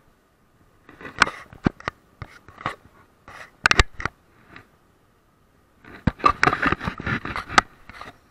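Irregular rattling clicks and scrapes in three bursts, about a second in, near the middle and near the end, from a mountain bike and its mounted camera jolting along a paved road.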